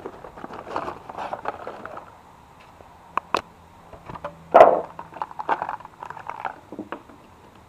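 Cardboard box and plastic packaging being handled and unpacked: rustling and scraping of card and plastic, with two sharp clicks about three seconds in and a louder scrape a little past halfway.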